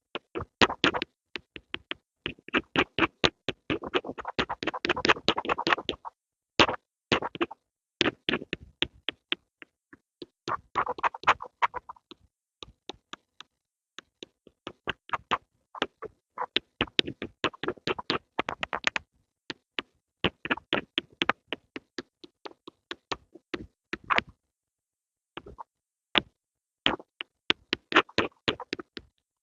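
Pencil sounds for ASMR: quick, irregular taps and scratchy strokes of a pencil, coming in bursts with short pauses between.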